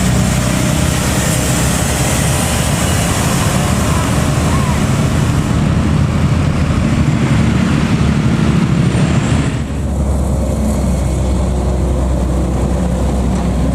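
Engines of heavy road vehicles, buses and trucks, in slow traffic: a loud rushing engine noise that falls away about ten seconds in, leaving a steady low engine hum.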